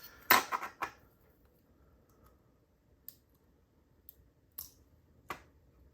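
Small metal clicks and taps of tweezers pulling the driver pins and springs out of a Mul-T-Lock Junior padlock's pin chambers. There is a quick cluster of clicks in the first second, then a few single clicks spaced out after it.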